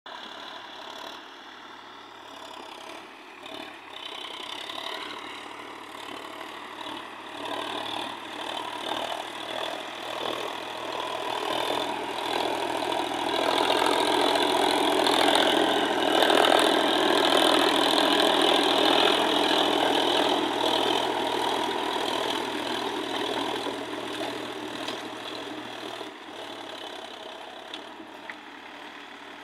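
Solis 5015 tractor working under load as it pulls a 6-foot, 42-blade rotavator through dry soil, its engine note mixed with the churning of the blades. The sound swells as the tractor passes close, is loudest in the middle, then fades as it moves away.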